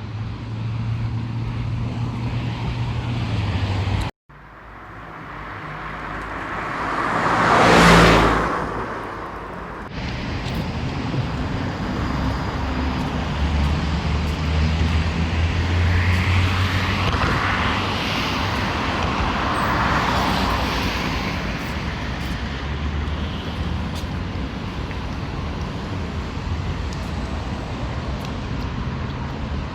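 Road traffic: steady engine hum and tyre noise of cars, with one car passing close about eight seconds in, rising and then falling away. The sound cuts out for an instant about four seconds in.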